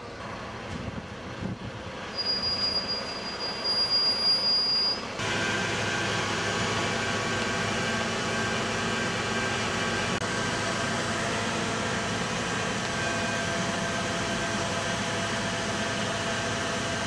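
A high, steady squeal for a few seconds, then, suddenly about five seconds in, a steady dense drone: a MAN aerial ladder fire truck's engine and hydraulics running while the boom and basket are raised.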